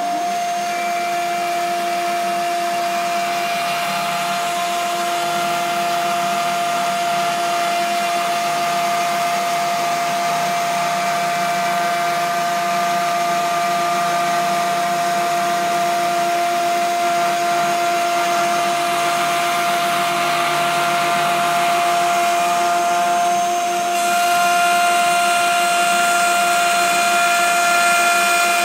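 A power tool's electric motor running steadily with a high, constant whine. About 24 seconds in it gets a little louder and higher tones come in.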